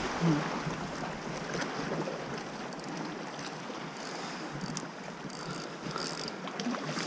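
Sea water washing against the rocks at the water's edge, with wind on the microphone and a few faint short ticks.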